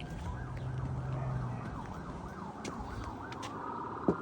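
Emergency vehicle siren sounding, its pitch sweeping quickly up and down in a yelp, then settling into a longer, steadier wail; two or three sharp knocks near the end.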